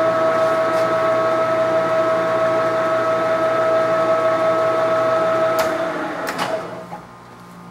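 Leblond Makino servo shift lathe running in gear at 256 RPM with a steady whine from the headstock drive. About five and a half seconds in come two sharp clicks about a second apart, and the machine runs down and stops: switched off, then braked.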